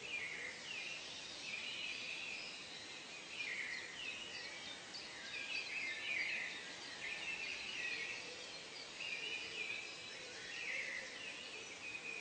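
Wild birds calling and chirping over one another in a steady stream of short, overlapping calls, over a constant background hiss of outdoor ambience.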